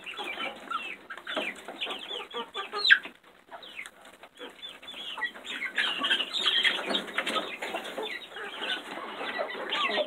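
A flock of chickens clucking and chattering while they feed, many short overlapping calls, with a sharp louder call about three seconds in followed by a brief lull.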